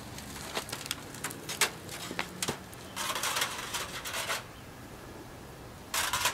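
Thin steel wire ticking and scraping against a roll of wire-mesh hardware cloth as it is handled. Scattered light clicks in the first couple of seconds, a rougher scrape about three seconds in, and another brief scrape at the end.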